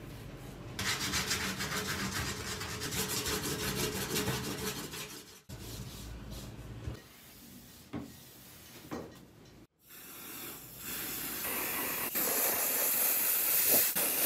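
Masking tape ripping as it is peeled off a wooden hammer handle, a rapid rasping tear for several seconds. Then a few soft wiping strokes of a paper towel on the wood. Near the end comes a steady spray hiss as a finish is sprayed onto the handle.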